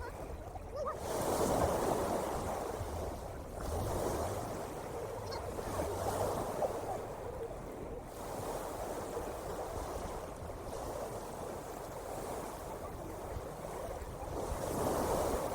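Ocean waves washing in, the surf swelling and easing several times.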